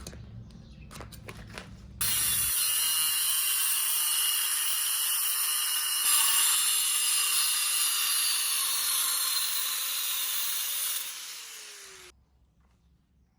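A power tool working on metal with a loud, harsh, hissing grind that starts suddenly about two seconds in and runs for about ten seconds. Near the end its motor pitch falls and the sound stops abruptly.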